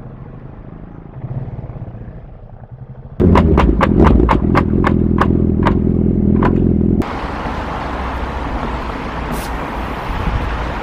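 A motor vehicle's engine running low. Then comes a loud, deep engine sound for about four seconds, marked by a string of about nine sharp cracks. It is followed by steady wind and road rush.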